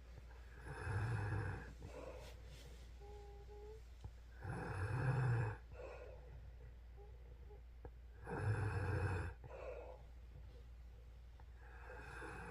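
A woman snoring in her sleep, one loud snore about every four seconds: three full snores, with a fourth starting near the end.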